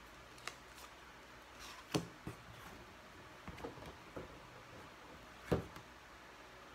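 Scattered light taps and knocks of small objects being handled and set down on a tabletop and in a foam-lined box, with a sharper knock about two seconds in and the loudest one about five and a half seconds in.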